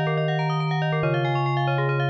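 Electronic synthesizer music: many layered, sustained keyboard-like notes over a held bass note that steps down to a lower pitch about a second in.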